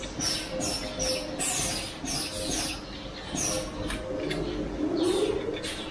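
Fully automatic crystal pendant-making machine running: a steady mechanical hum with short, high, falling squeaks repeating roughly twice a second.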